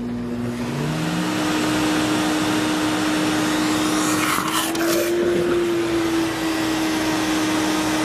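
Sirena water-filtration canister vacuum running at full suction with a steady motor whine and rush of air, drawing a glass of water up through its hose as a wet pickup. About four to five seconds in there is a short slurping gurgle as the water is sucked in, and the motor's pitch lifts briefly.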